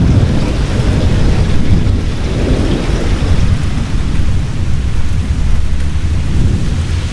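Heavy rain falling steadily, with low rolling thunder rumbling beneath it that swells near the start and again about three seconds in.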